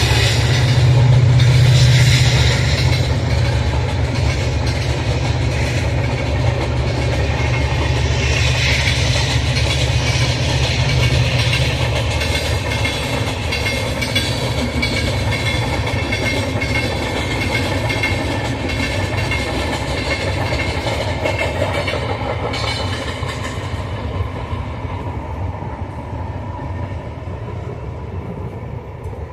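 Passenger express train running through a station without stopping: the coaches' wheels rumble and clatter steadily on the rails, loudest in the first few seconds, then slowly fading as the train draws away.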